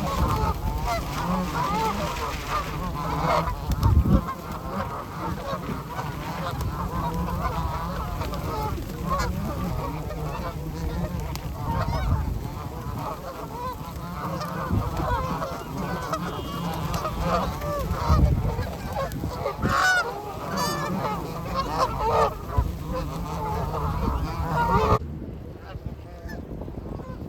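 A flock of geese honking, many short calls overlapping in a continuous din; it cuts off suddenly shortly before the end.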